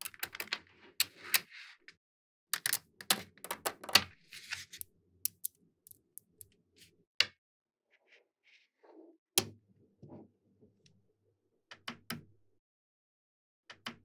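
Small magnetic balls clicking and snapping together as they are handled and pressed into shape: a quick, irregular run of sharp clicks in the first few seconds, then scattered single clicks.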